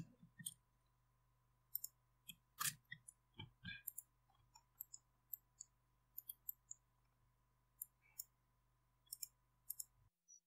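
Faint, irregular clicks of a computer mouse and keyboard being operated, over a very faint steady hum that cuts off just before the end.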